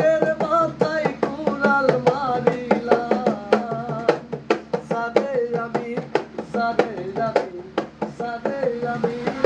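Bengali Baul folk music: a melody line with bending notes over a quick, steady hand-drum beat.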